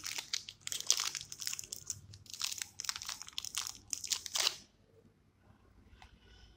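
Clear plastic zip-lock bag crinkling and rustling in the hands as red modelling clay is pulled out of it. The crinkling stops about four and a half seconds in.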